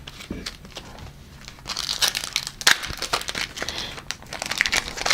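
Wrapper of a football trading-card pack being crinkled and torn open by hand: a dense run of crisp crackles that starts about a second and a half in.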